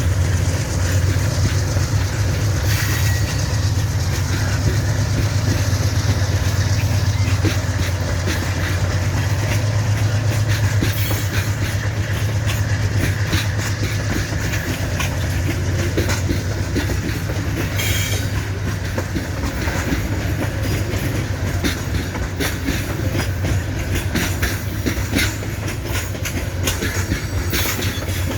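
Coal freight train rolling past: a steady low diesel-locomotive drone under the wheels clacking over the rail joints, the clacks coming thicker in the second half. There are a couple of brief high squeals from the wheels, one about three seconds in and one around the middle.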